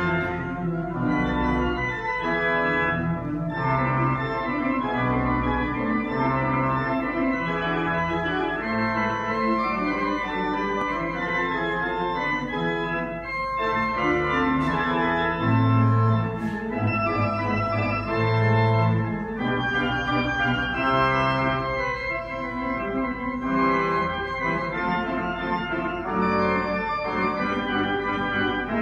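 Historic Willis pipe organ playing: sustained chords that change every second or so over held bass notes, with the deep pedal notes loudest from about halfway through.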